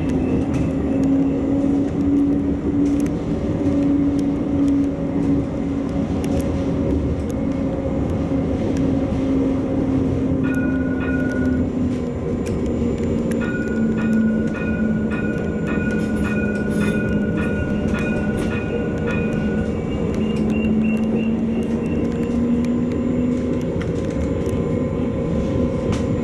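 A European-built battery light-rail tram (CAF Urbos 3) running, heard from inside the driver's cab. The traction motors give a steady whine over the running noise, and it dips slightly in pitch about halfway through before rising again near the end. In the middle stretch a high electronic tone sounds with regular ticking, a little under two ticks a second.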